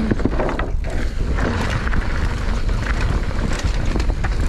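Riding noise of a mountain bike descending a dirt trail: wind rumbling on the microphone, tyres running over the ground, and scattered clicks and knocks from the bike.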